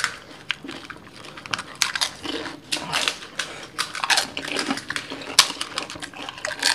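Crisp fuchka (panipuri) shells being cracked open with fingertips and crunched by two people eating fast: a dense, irregular run of crackles and crunches.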